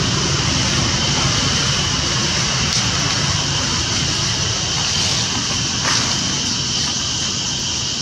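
Steady outdoor background noise: a low rumble under a bright, even high hiss, with one faint click about six seconds in.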